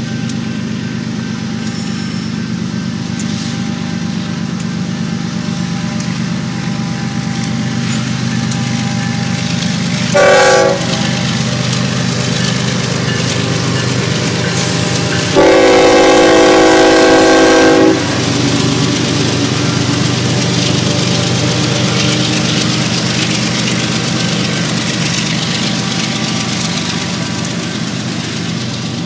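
BNSF freight train's diesel locomotives running with a steady engine hum, their multi-chime air horn giving a short blast about ten seconds in and a long blast of about two and a half seconds about fifteen seconds in.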